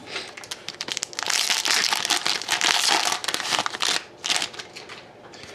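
Plastic wrapper of a hockey card pack crinkling as it is torn open and handled. The crinkle is loudest from about a second in to about four seconds in, then fades to light handling.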